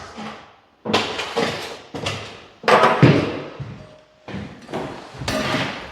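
Thuds and rustling from materials and tools being handled and set down. There are three bouts about a second and a half apart, each starting with a sharp knock and fading out.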